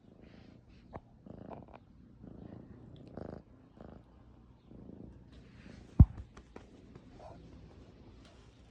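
Kitten purring in soft pulses about once a second, with scattered light clicks and one sharp thump about six seconds in, the loudest sound.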